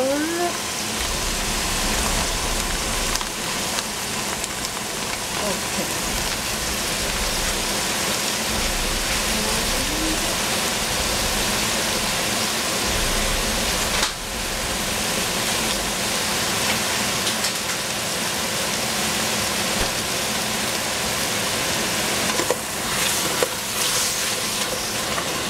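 Sliced squash and chicken meatballs sizzling in oil in a steel pot over a high gas flame, a steady hiss like rain. Near the end a wooden spatula stirs them, with a few knocks and scrapes against the pot.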